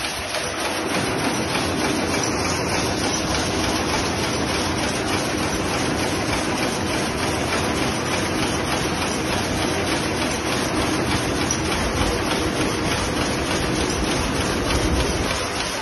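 Electronic jacquard power loom weaving, running with a loud, fast, steady mechanical clatter.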